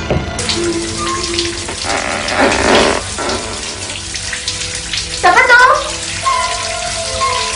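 Shower running, water spraying steadily, a little louder two to three seconds in, with music playing underneath.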